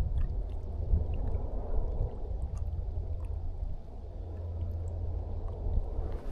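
Low, uneven rumble of wind buffeting the microphone, with a few faint ticks.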